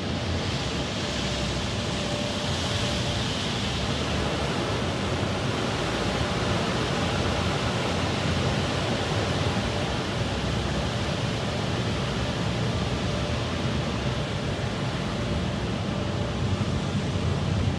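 Automatic car wash water jets spraying against the car's windshield and body, heard from inside the car as a steady hiss of spray.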